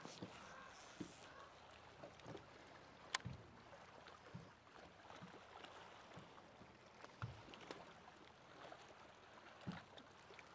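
Near silence: faint water lapping against a boat's hull, with a handful of small clicks and knocks, the sharpest about three seconds in.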